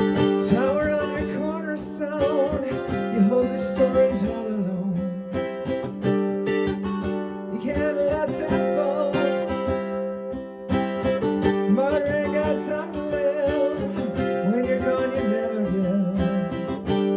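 A voice singing a song to a strummed ukulele, played through a portable Bose S1 Pro+ PA speaker.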